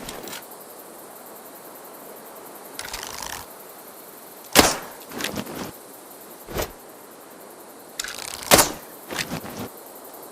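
A bow being shot twice, about four seconds apart: each shot is a sharp snap, the loudest sound, with a short rustle before it and a few lighter clicks after.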